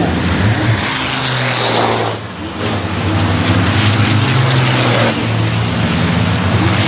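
MAN racing truck's diesel engine running at a steady pitch as the truck drives past, with a brief drop in level about two seconds in.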